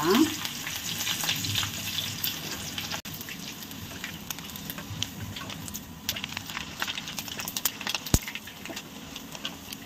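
Hot oil sizzling and crackling steadily as curry leaves, slices of dried coconut (copra) and garlic cloves deep-fry in a wire strainer dipped in the pan.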